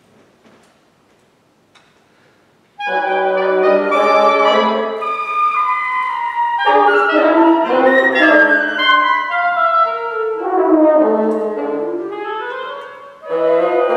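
Woodwind quintet of flute, oboe, clarinet, bassoon and horn playing contemporary chamber music: a few seconds of quiet room noise, then the ensemble enters abruptly and loudly about three seconds in with many overlapping moving lines, thinning briefly near the end before coming back in. This is the opening of a movement meant to depict exotic birds.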